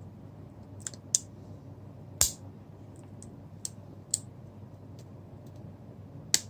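Sharp, irregular clicks and taps from handling small parts and tools while taking apart an LG G2 smartphone, about six in all, with a heavier knock about two seconds in.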